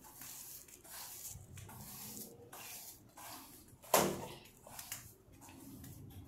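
Rustling and bumping of toys and a handheld phone being carried, with one sharp knock about four seconds in.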